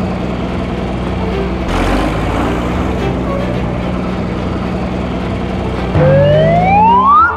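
Cartoon sound effects for a fire truck: a steady engine hum, then about six seconds in a loud siren-like whine that rises sharply in pitch and cuts off suddenly.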